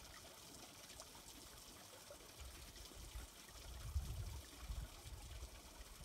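Glacial meltwater trickling into a shallow pool, faint and steady, with a low rumbling that swells up about halfway through.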